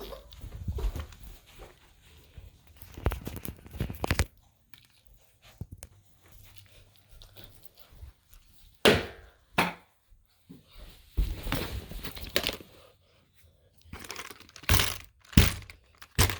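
Toys being pulled apart and broken up by hand: irregular rustling, crinkling and scraping, with a few sharper knocks about nine seconds in and twice near the end.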